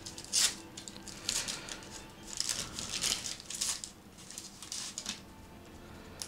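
Wax-paper wrapper of a 1986 Topps baseball card pack being torn open and crinkled by hand, in a string of crackling rustles.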